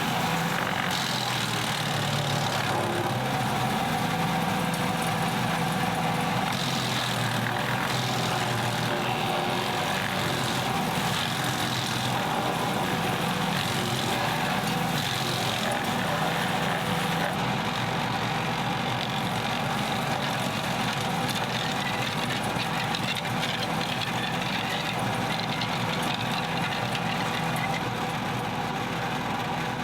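Woods wood chipper running steadily, working through a pile of brush: a continuous engine drone with a hissing, grinding layer on top that eases off somewhat after about 17 seconds.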